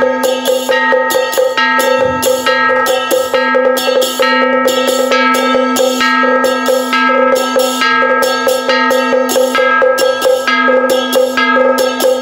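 Taoist ritual music: a suona holding a steady, reedy line over fast, even percussion strokes of drum and wood block, about three a second.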